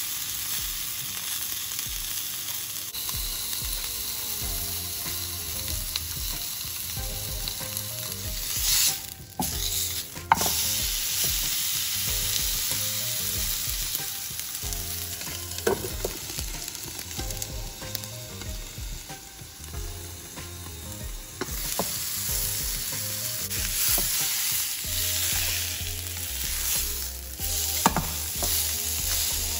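Bone-in ribeye steak searing in oil in a nonstick frying pan: a steady sizzle, with a few sharp clicks scattered through it.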